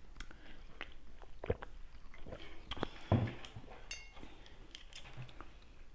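Quiet mouth sounds of sipping water through a straw and swallowing, with small wet clicks. About four seconds in there is a brief glassy clink as the glass is set down.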